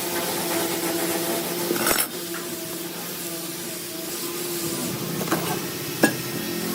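Woodworking work: a steady hiss over a faint hum, with sharp knocks about two, five and six seconds in.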